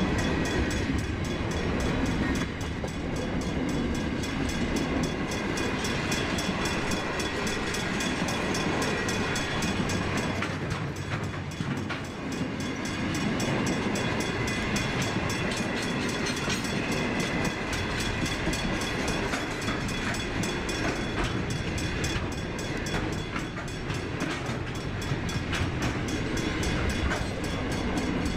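Container freight train's wagons rolling steadily past: a continuous rumble of steel wheels on rail, with faint clicks over rail joints and a thin high whine from the wheels running through it.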